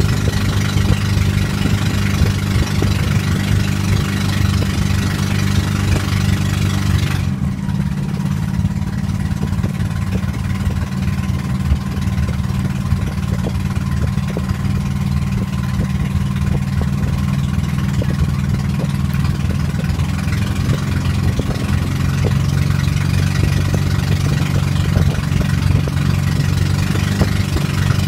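A wooden motorboat's engine running steadily while under way, with a high hiss over it that drops away about seven seconds in.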